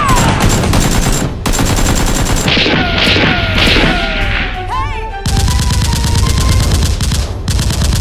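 Bursts of rapid automatic gunfire sound effects over background music: a short burst about a second and a half in and a longer one from about five seconds on.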